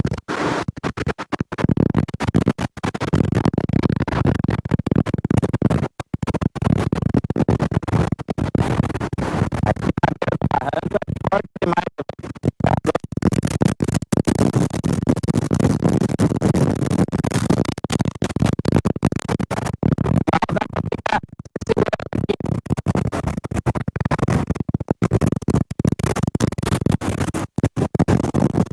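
Gale-force cyclone wind buffeting the microphone: a loud, continuous rough rumble, crackling and cutting out in rapid, irregular dropouts as the gusts hit.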